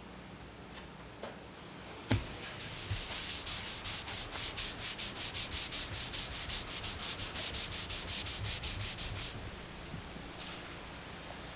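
Hand sanding on the sinker cypress slab: quick back-and-forth strokes, about four a second, for roughly seven seconds. They follow a sharp knock about two seconds in.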